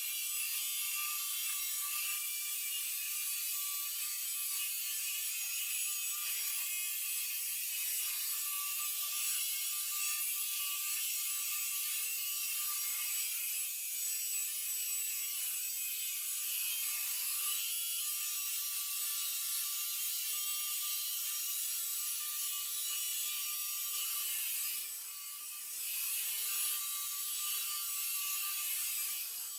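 iRobot Roomba robot vacuum running, a steady high-pitched whine over a whirring, rattling hiss of brushes and suction, briefly dipping about 25 seconds in.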